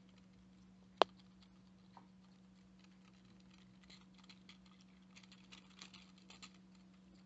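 Eyeglasses handled in a hand shaking with an MS tremor: one sharp click about a second in, then a run of faint, rapid light clicks and rattles from the frames.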